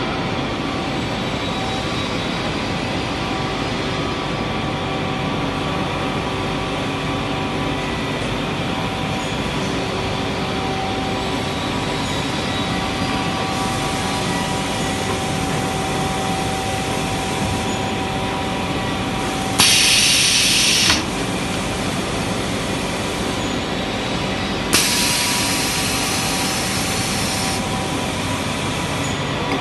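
Edda Spinner 1000s BN horizontal wrapper running as it winds air-bubble film around a furniture panel. It makes a steady machine noise with several faint steady tones. Twice, about two-thirds of the way through, a loud hiss cuts in, first for about a second, then for nearly three seconds.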